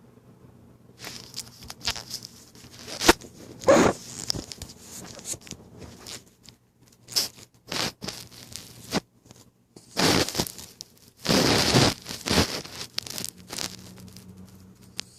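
A sleeping dog snoring in irregular raspy snorts, with sharp clicks scattered between. The longest and loudest snorts come as two rasps about ten to twelve and a half seconds in.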